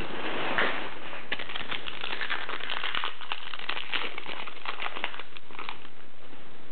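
A trading-card pack wrapper crinkling and rustling in the hands as it is opened and the cards are slid out, with a dense run of small crackles and clicks through most of it.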